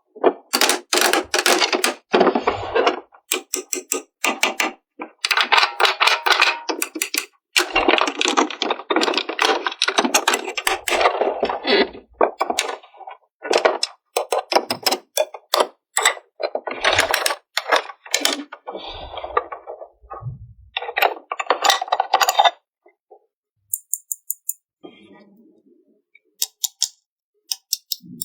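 Plastic toy pieces and packaging being handled during unboxing: bursts of rapid clicking, rattling and crinkling with short pauses, growing sparse and quieter near the end.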